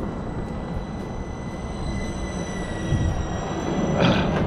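Four 55 mm electric ducted fans of an RC Airbus A380 model whining in flight overhead: a steady high whine that falls slightly in pitch over a low rumble. The whine cuts off about four seconds in, followed by a short rush of noise.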